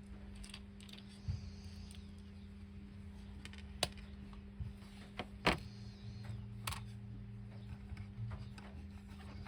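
A few sharp clicks and light taps from small tools and hard plastic toy parts being handled on a workbench, the loudest about four and five and a half seconds in, over a steady low electrical hum.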